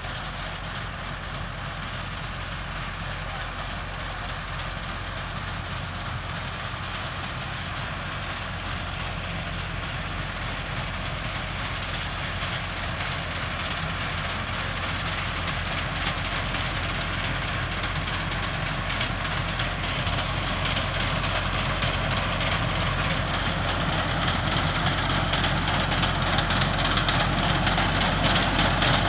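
Massey Ferguson 385 tractor's four-cylinder diesel engine running steadily under load while driving a front-mounted reaper through standing wheat, with the clatter of the cutting gear. It grows steadily louder as the tractor comes closer.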